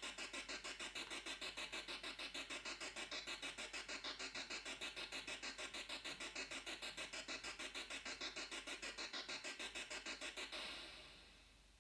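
Commodore SX-64's SID sound chip playing an organ tune from the Organ demo program, a rapidly pulsing electronic tone of about seven pulses a second with changing pitches. It stops about ten and a half seconds in and fades out over about a second.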